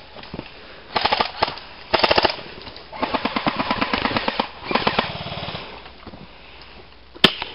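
Airsoft guns firing in rapid full-auto bursts, several short strings of fast clicking shots and one longer burst of about a second and a half, with a couple of single sharp shots near the end.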